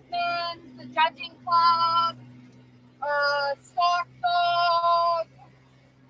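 A voice singing about five long held notes at a steady pitch, over the steady low hum of a utility vehicle's engine.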